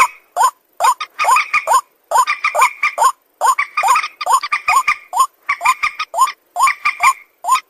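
An animal, most likely a bird, giving short, quick calls over and over, two to four a second in irregular runs, each call a brief rise and fall in pitch.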